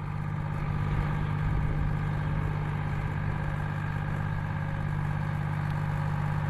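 Massey Ferguson 97 tractor's Minneapolis Moline-built 504 cubic inch six-cylinder engine running at a steady speed as the tractor drives by. It grows louder over the first second, then holds even.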